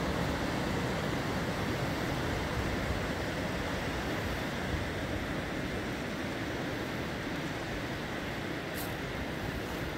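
Steady noise of sea surf breaking on the shore, mixed with wind rumbling on the microphone.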